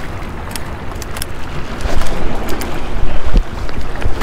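Gusty wind rumbling on the camera microphone over water splashing against the rocks, where a hooked speckled trout thrashes at the surface. A few short sharp ticks stand out, and the rumble swells about two seconds in and again a little after three.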